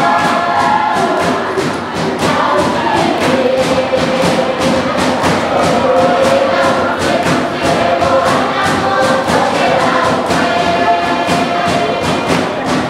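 A group of women singing together in chorus, held and sliding lines in unison, over a fast steady percussive beat.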